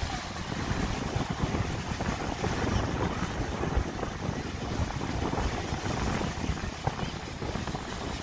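Wind buffeting the microphone in uneven gusts, over the steady wash of small waves on the shore.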